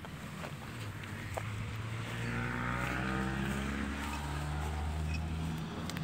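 A motor vehicle's engine running steadily, its pitch falling slightly in the middle.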